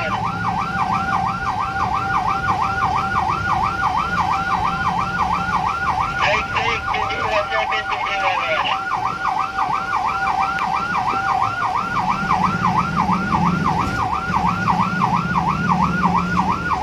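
Emergency vehicle siren on a fast yelp, about three sweeps a second, heard from inside a car over the steady low rumble of the engine; a second, higher siren joins briefly about six seconds in.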